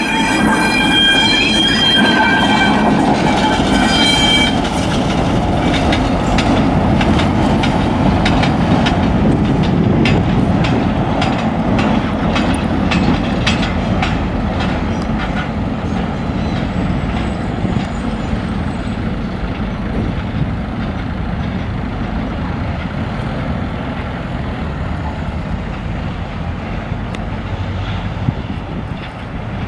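EMD G22 diesel-electric locomotive moving slowly along the track. Its wheels squeal high-pitched for the first few seconds, then click rhythmically over the rail joints for about ten seconds, over the steady rumble of the diesel engine, which slowly fades.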